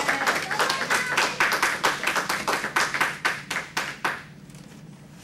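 A small congregation clapping in applause, with a quick run of separate hand claps that dies away about four seconds in. Faint voices sound under the claps early on.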